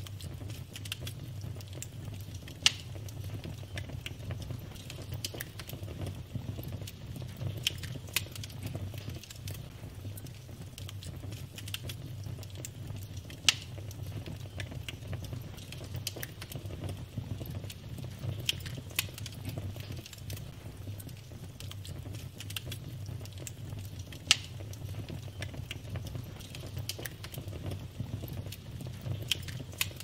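Burning wood logs crackling: a steady low rumble of the flames with a constant scatter of small pops, and a few louder sharp snaps spread through.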